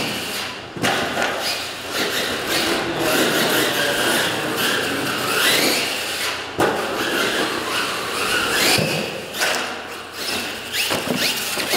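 Radio-controlled scale monster truck driven hard over dirt-track ramps: its motor whines up and down in pitch, with several sharp knocks as the truck lands and hits the ramps, echoing in a large hall.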